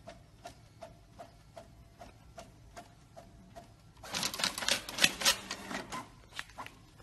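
Printer ticking evenly about two or three times a second, then about four seconds in a louder rattling whir for about two seconds as it feeds out a printed sheet, before the ticking resumes.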